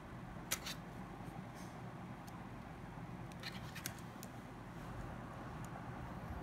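A few small, sharp clicks and ticks, as of tiny phone parts or tools being handled, over a steady low background hum and hiss. There are two clicks close together about half a second in and a quick cluster of three or four between about three and four seconds in.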